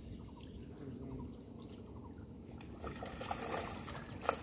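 Water sloshing and splashing as several people wade and grope by hand through a shallow muddy pond, livelier in the last second or so, with one short sharp noise near the end.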